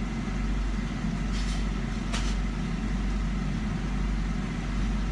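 Car engine idling steadily, heard from inside the car's cabin as a low rumble, with two short scratchy noises about a second and a half and two seconds in.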